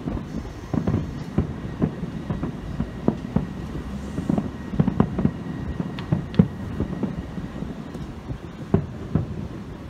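Fireworks shells bursting in an irregular rapid string of booms, one to three a second, over a continuous low rumble. A louder bang comes about six and a half seconds in.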